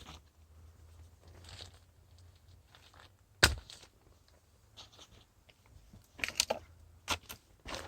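Handling noise from work on ductwork: scattered crinkling and crunching, with one sharp knock about three and a half seconds in and a quick run of clicks near the end.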